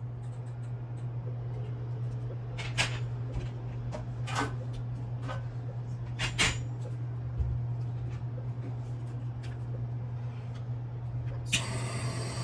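Kitchen handling sounds: a few sharp clicks and knocks of things being set down or moved, over a steady low hum. A steady hiss starts suddenly near the end.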